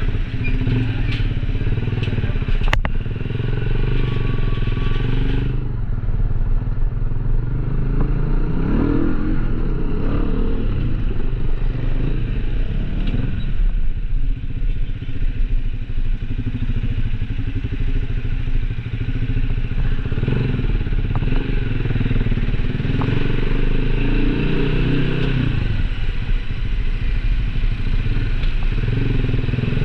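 A small engine running steadily, with a few sharp clicks in the first seconds.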